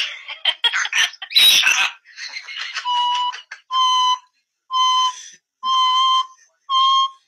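African grey parrots squawking and clicking, then five alarm-like beeps about a second apart, a parrot's imitation of an electronic alarm beep.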